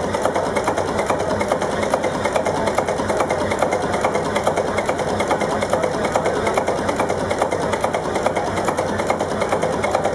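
Old multi-cylinder vertical marine diesel engine running steadily, with a fast, even knocking beat from its working cylinders and exposed valve gear.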